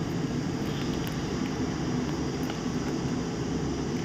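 Steady low machine hum with an even hiss, and a few faint clicks.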